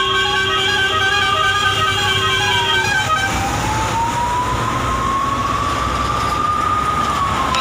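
Ambulance siren wailing, its pitch rising and falling slowly over several seconds. A steady horn-like note sounds over it and stops about three seconds in.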